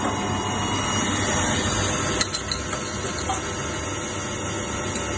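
Wahli 90 CNC machine running steadily, with a sharp click about two seconds in and a few light ticks after it.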